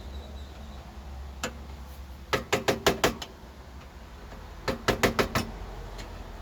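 Sharp clicks and taps from hand work on parts: one about a second and a half in, then two quick runs of about six each, near the middle and near the end.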